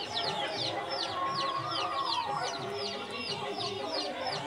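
Chickens: a steady stream of short, high, falling cheeps from chicks, several a second, over low clucking from a hen.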